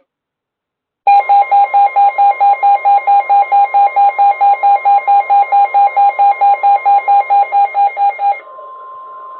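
A weather alert radio's alarm beeping rapidly, about five beeps a second, over the steady single-pitch NOAA Weather Radio warning alarm tone, which marks an incoming warning. The beeping stops about eight seconds in and the steady tone carries on alone, quieter.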